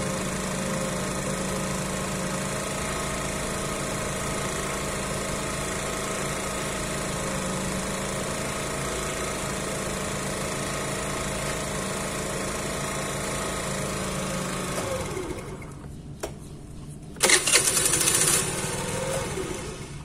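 Piaggio Vespa S 50 two-stroke single-cylinder scooter engine running steadily at an even pitch, then shutting off about fifteen seconds in. A loud burst of noise lasting about a second follows near the end.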